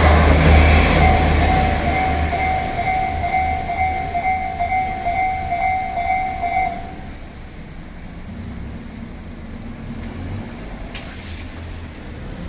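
JR Shikoku 1200-series diesel railcar running past with a low rumble that fades away, while the level crossing's electronic warning bell rings in a steady repeating two-tone pattern and stops about seven seconds in. A brief click comes near the end.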